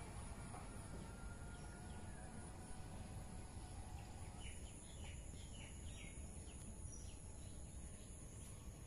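Faint outdoor ambience: a low rumbling noise and a steady high-pitched hum, with a bird giving a quick run of about six short, downward-sliding chirps from about four and a half to seven seconds in.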